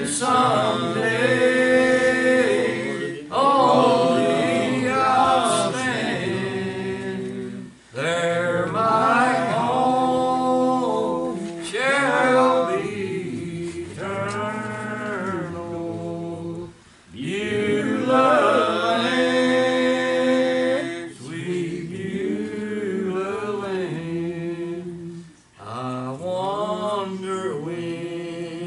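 Gospel song sung by voices in long, held phrases of a few seconds each, with short breaks between lines.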